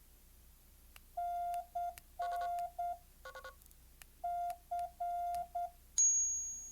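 Morse code trainer app's beep tone, a single pitch keyed unevenly by hand in long and short beeps: dash-dot-dash-dot (the letter C), a few brief mixed tones, then dash-dot-dash-dot again. About six seconds in a high, bright chime rings and fades.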